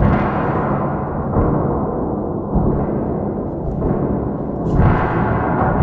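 Low, rumbling whoosh of an object being swung rapidly through the air, swelling and fading with each swing, a few swells over several seconds.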